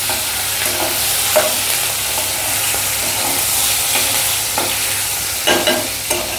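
Green chillies and cumin seeds sizzling in hot ghee in a kadhai, stirred with a flat spatula that scrapes over the pan. There is a steady hiss of frying, with a few short spatula knocks, about a second and a half in and several near the end.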